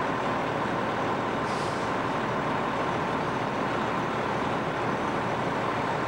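Fire apparatus engines running steadily at the fireground, with a short hiss about one and a half seconds in.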